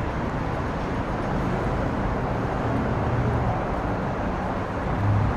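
Steady street traffic noise with a low engine rumble from passing vehicles, in a busy city street.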